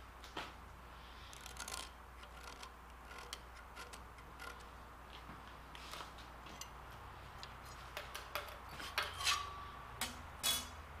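Small steel layout tools, a steel rule and a scriber, handled against a steel flat bar clamped in a vise: scattered light metal clicks, taps and scrapes while a hole position is marked out. The clicks grow louder and busier near the end, with one brief ring.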